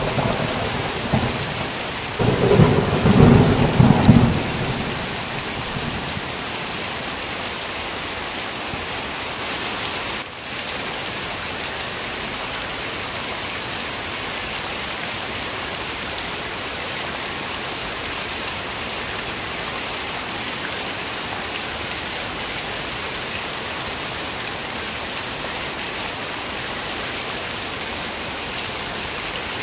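Thunderstorm: heavy rain hissing steadily, with a loud thunder rumble fading at the start and a second loud thunderclap about two seconds in that rumbles out by about six seconds.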